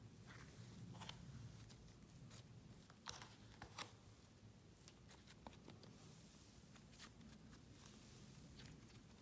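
Fluffy slime being pulled out of a plastic tub, stretched and kneaded by hand, giving faint scattered sticky crackles and small pops, a couple of them a little louder between about three and four seconds in.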